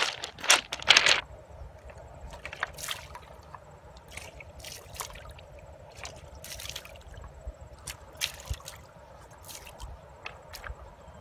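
Footsteps crunching over loose river stones for about the first second, then liquid poured from an aluminium bottle trickling and splashing into shallow river water.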